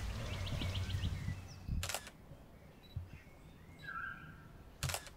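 Two sharp camera shutter clicks, about three seconds apart, over a quiet outdoor background with a few faint bird chirps.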